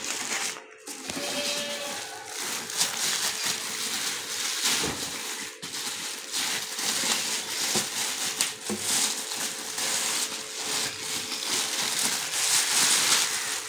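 Clear plastic wrapping crinkling and rustling in quick irregular crackles as a plastic-wrapped solar inverter is handled and pulled free of its foam packing. A faint steady tone runs underneath.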